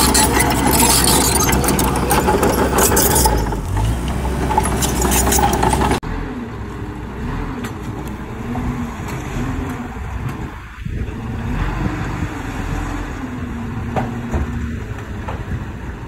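Komatsu D31PX crawler bulldozer's diesel engine running under load, with many sharp metallic clanks over a low rumble. About six seconds in the sound changes abruptly to a quieter engine note that rises and falls in pitch.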